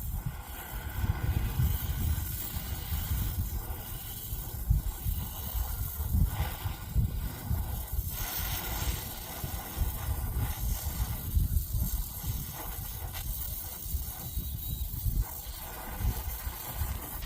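Brazing torch flame hissing steadily as it heats a copper pipe joint, with an uneven low rumble under the hiss.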